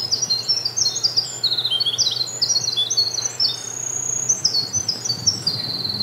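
Winter wren singing its long song: a fast, unbroken stream of high trills and tinkling notes that jump up and down in pitch.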